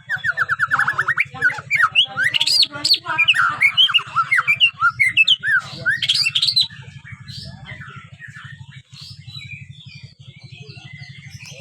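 Young white-rumped shama, about five months old and still learning its song, singing loud varied whistles, fast runs of repeated notes and rising and falling phrases. About two-thirds of the way through it drops to a softer twittering. A steady low hum runs underneath.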